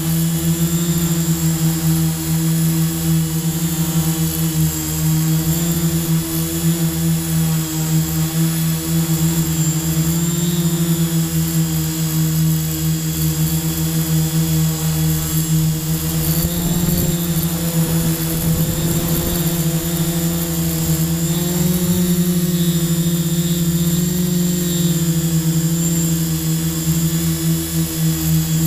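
Quadcopter drone's electric motors and propellers whining steadily in flight, the pitch dipping and rising a little now and then.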